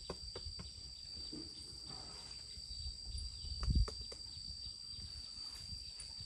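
A steady high-pitched insect drone in a rural garden, with scattered light clicks and low rumble, and one louder low thump a little past halfway.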